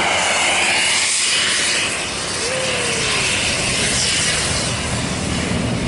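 Tour bus passing close by, its engine and tyres making a loud, steady rush of noise with a hiss in it that eases slightly after about two seconds.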